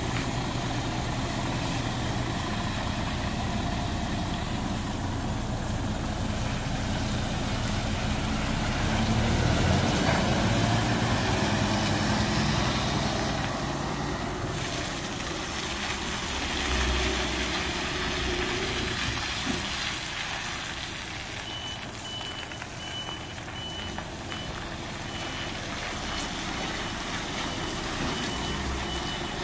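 Scania P490 truck's 13-litre straight-six diesel running as the truck manoeuvres slowly, louder for a few seconds about a third of the way in. From about two-thirds of the way through, a reversing alarm beeps in an even rhythm.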